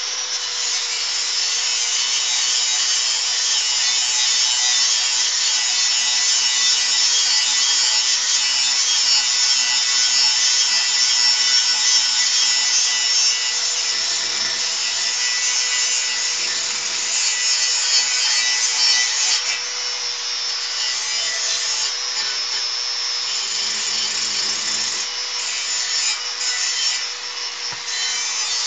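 Electric angle grinder with a stone grinding disc running and grinding the rough edges off a piece of metal: a steady loud grinding hiss over a constant motor whine.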